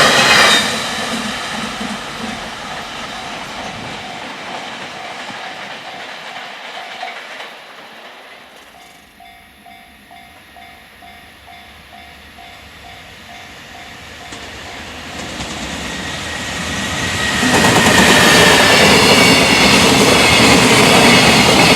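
A freight train at speed, its wheels clattering over rail joints, then fading away about half a second in. A level-crossing warning bell dings evenly about twice a second, stops briefly, then starts again. Near the end another freight train comes through loud, clattering over the joints.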